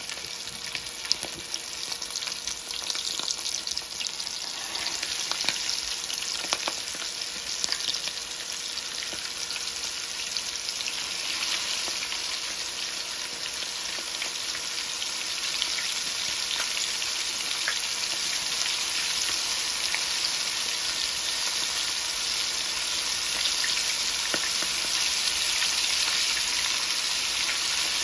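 A fresh batch of lightly floured chicken pieces frying in hot oil: a steady sizzle with scattered crackles in the first few seconds, growing gradually louder throughout.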